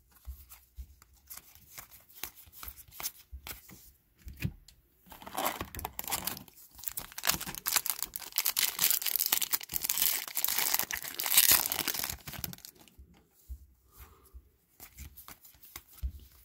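Foil trading-card pack wrapper being torn open and crinkled, a run of crackling and tearing from about four seconds in until about twelve, loudest near the end of that run. Before and after it, the soft clicks and slides of cards being handled.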